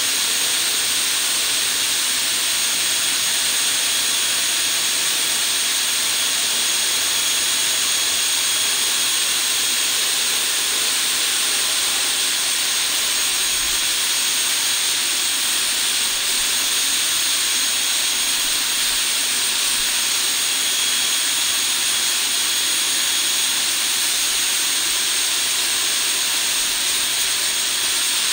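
JetCat P200-RX model gas turbine running at a steady speed: a loud rushing hiss with a high, unchanging whine.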